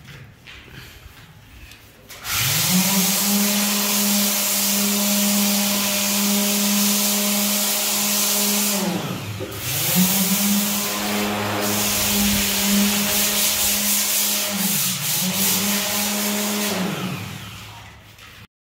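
Corded handheld power sander running against a rendered concrete wall: a steady motor whine with a loud abrasive hiss. It starts about two seconds in, slows and picks up again twice, and winds down to a stop near the end.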